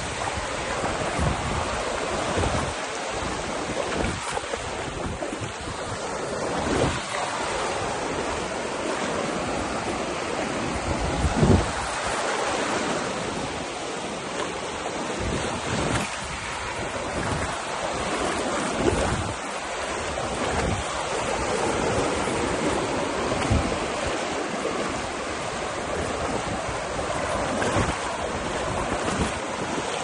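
Small surf waves breaking and washing over sand in shallow water, a steady rushing wash. Wind noise on the microphone, with a few low thumps at irregular moments.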